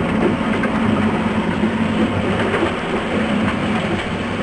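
Charter fishing boat's engine running steadily with a low drone, mixed with hull and water noise.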